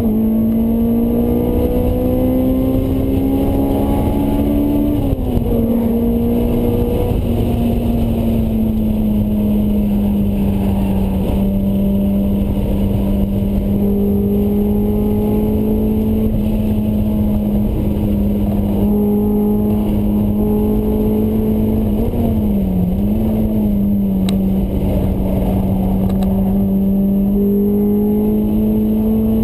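Honda S2000's four-cylinder engine through a Mugen exhaust, heard from inside the cabin under hard driving. The engine note falls sharply with gear changes right at the start and about five seconds in, holds a steady high note for a long stretch, dips briefly and recovers about 22 seconds in, then climbs again near the end, over steady wind and road noise.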